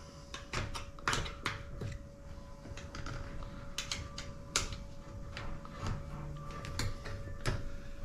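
Tyre levers clicking and scraping against a bicycle wheel rim and tyre as they are hooked in under the tyre bead to prise it off, with scattered sharp clicks and light knocks.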